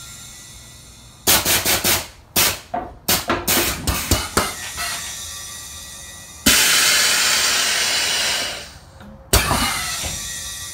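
Air-ride suspension valves hissing as the air bags are worked: a quick string of short air bursts as the switches are tapped, then two long hisses of air, the second starting with a thump.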